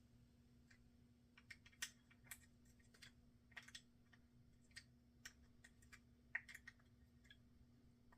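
Faint, irregular small clicks and taps of tools on the metal and plastic parts of a Zebco 2020 push-button spincast reel as its handle nut is worked off, over a faint steady hum.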